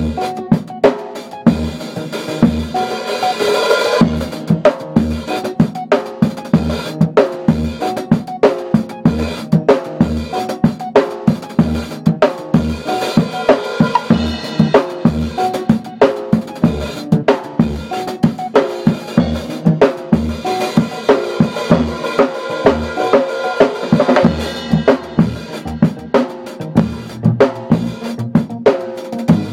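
Drum kit played in a steady groove: kick drum on a regular pulse under snare hits and hi-hat, with cymbal crashes washing over it several times.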